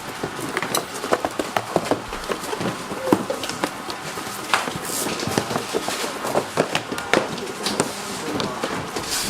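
Busy factory-floor ambience: irregular small clicks and knocks of handling work, with voices in the background.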